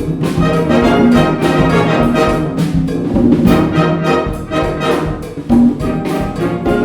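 Concert band playing a Cuban-style, Latin-jazz piece live: brass section with trumpets and trombones over a steady, rhythmic percussion beat.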